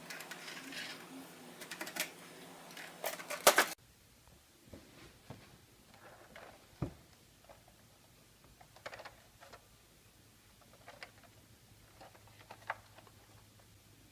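Faint, scattered clicks and taps of hands handling a toy RC car and its packaging, with one firmer knock about halfway through. A low hum under the first few seconds cuts off suddenly.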